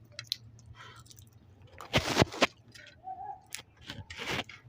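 Raw nuts being cracked and chewed: scattered small clicks and crunches, with two sharp cracks about two seconds in and a short crunch near the end.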